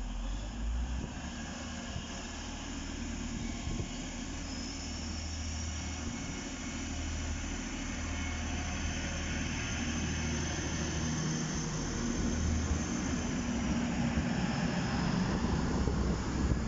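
Class 185 diesel multiple unit pulling out of the station, its underfloor diesel engines working under power with a deep rumble and a faint high whine. It grows louder as more of the train passes.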